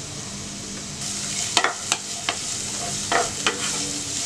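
Chopped onions sizzling in hot oil in a non-stick pan, the sizzle growing louder about a second in, while a wooden spatula stirs them with several knocks and scrapes against the pan.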